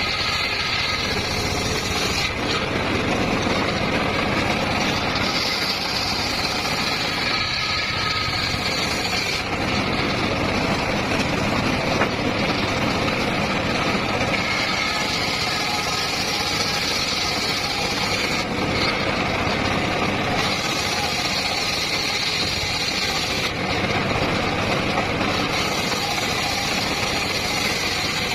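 Homemade circular sawmill running steadily: its engine and blade make a continuous mechanical noise whose tone shifts every few seconds.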